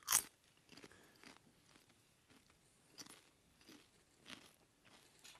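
Someone biting into and chewing a crunchy potato snack with cheese sauce, with one loud crisp crunch right at the start, then a few faint crunches as he chews.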